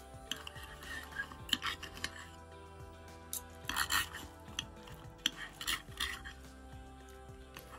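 Stainless knife and fork scraping and clinking on a ceramic plate while cutting a pork chop, in a series of short scrapes, the loudest cluster about four seconds in.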